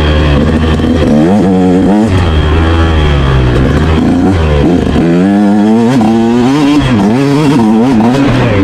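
Motorcycle engine revving up and down, its pitch rising and falling again and again, with quicker rises and drops in the second half.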